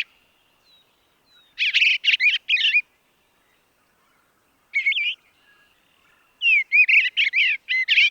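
Eastern bluebird singing: three phrases of quick warbled notes, each about a second long, with pauses between them.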